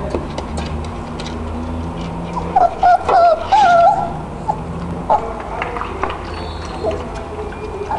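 Rottweiler–Labrador cross puppy whimpering and whining in short, high, wavering cries, loudest from about two and a half to four seconds in, with softer whimpers later.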